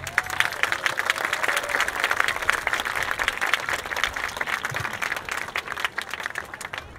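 Audience applause, a dense clatter of many hands clapping that fades out near the end.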